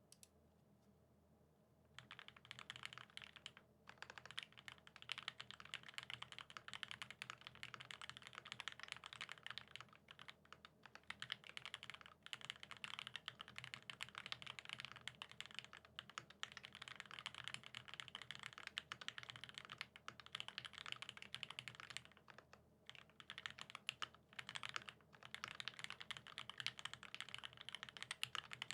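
Satisfaction75 mechanical keyboard being typed on, with lubed vintage Cherry Top SP Star switches on 80 g springs in a top-mounted brass plate. A dense, fast run of keystrokes starts about two seconds in and carries on with a few brief pauses.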